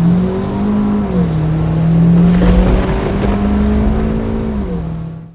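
A motor vehicle engine running, its pitch stepping up and down a few times, cut off abruptly at the end.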